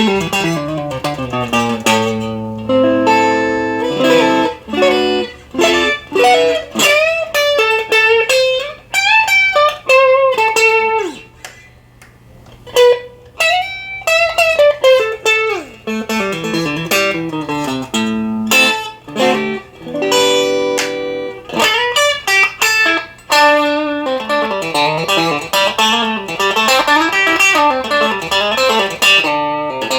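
Electric guitar played through an amplifier in a pickup sound test: single-note lead phrases with string bends, mixed with ringing chords.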